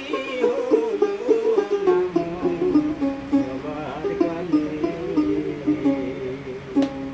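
A man singing a Baul folk song while plucking a dotara, the Bengali long-necked folk lute. The wavering vocal line is strongest for the first couple of seconds, with the plucked melody carrying on beneath and after it.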